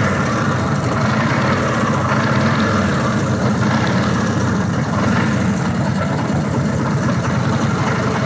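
1947 Harley-Davidson motorcycle engine idling steadily through its newly fitted muffler, freshly revived after sitting over 60 years.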